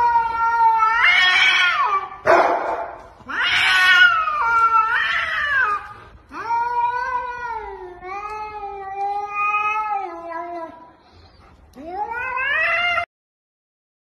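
Cats caterwauling in an aggressive face-off: four long, drawn-out yowls, each wavering up and down in pitch. They cut off abruptly about a second before the end.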